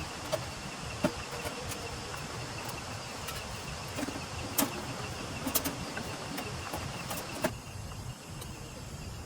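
Steady rain hiss with scattered sharp taps, over a faint steady high insect trill; the hiss drops off suddenly about seven and a half seconds in.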